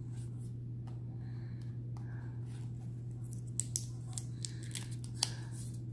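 Hands picking at a card deck's wrapping: scattered light scratches and a few sharp clicks, the sharpest in the second half, over a steady low hum.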